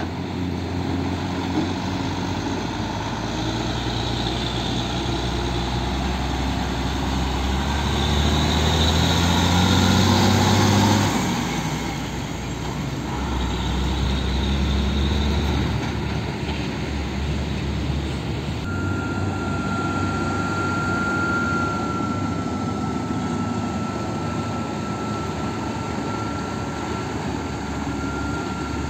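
Heavy diesel truck engines running and pulling away through a junction, with the engine notes swelling to a peak about a third of the way in. A thin steady high whine joins about two-thirds through.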